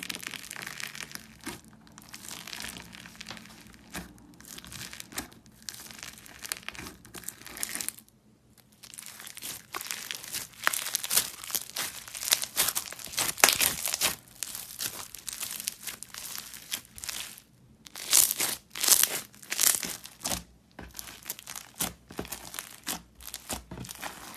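Foam-bead slime (floam) being poked, squeezed and stretched by hand, its beads giving off dense, irregular crackling in squeeze-length bunches. There is a short pause about eight seconds in.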